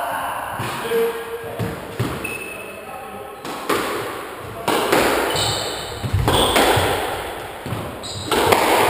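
Squash ball struck by racquets and hitting the court walls during a rally: sharp, echoing knocks roughly every half second to a second, with short high squeaks of shoes on the wooden floor between them.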